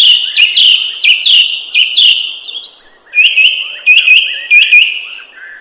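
A bird calling loudly in two runs of quick, repeated high chirps, with a short break about three seconds in.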